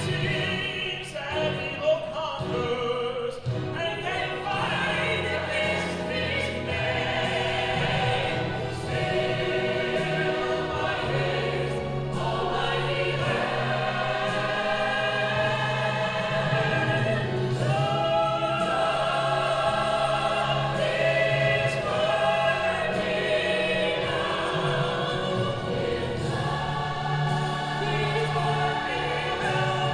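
A choir singing with instrumental accompaniment, sustained low notes beneath the voices.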